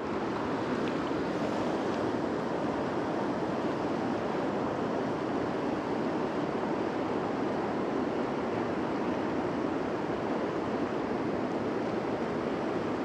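Steady rush of a fast mountain river running over rocks and riffles, an even rushing that doesn't change.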